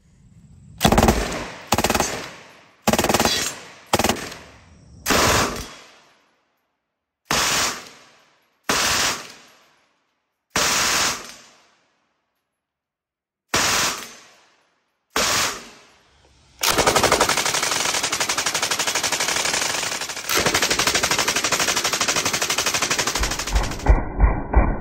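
MG-42-pattern belt-fed machine gun firing at its very high rate: about ten short bursts with pauses between them, then one long unbroken burst of several seconds. Near the end the firing turns duller, with the separate shots heard more plainly.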